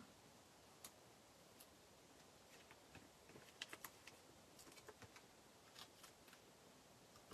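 Near silence with scattered faint clicks and taps from small paper pieces being handled and pressed onto a card.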